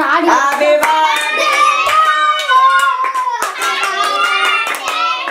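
Hands clapping in a steady rhythm while high voices sing along, held notes gliding from one to the next.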